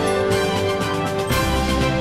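Background theme music with a steady beat; the chord changes about a second and a half in.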